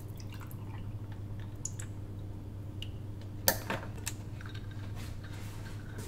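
Light taps and clinks of coffee-making by hand (cup, jug and machine parts being handled) over a steady low hum, with one sharper knock about three and a half seconds in.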